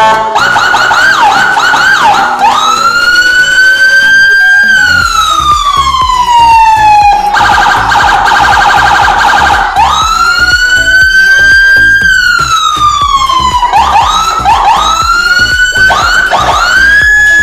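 Electronic vehicle siren fitted to a Toyota Land Cruiser Prado, stepped through its tones from the controller: fast yelp sweeps, then a slow wail rising and falling, a rapid warble in the middle, a second slow wail, and fast yelp sweeps again near the end.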